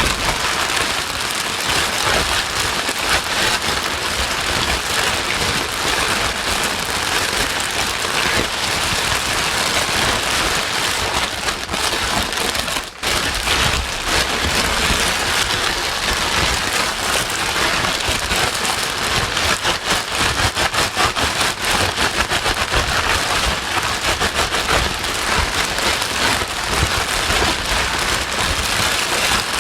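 Loud, steady white noise that sounds like heavy rain, played to soothe a crying baby to sleep. It dips briefly about thirteen seconds in.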